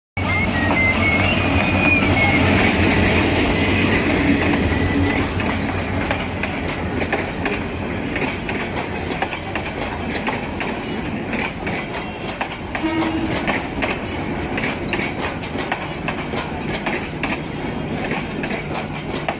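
A diesel locomotive runs past loud for the first few seconds, then its passenger coaches roll by with a steady clickety-clack of wheels over the rail joints.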